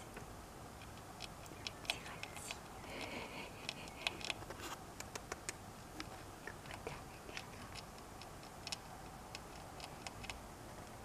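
Soft, irregular small clicks and scratchy ticks, a few a second, from a baby acacia rat moving about and nibbling at a fingertip close to the microphone.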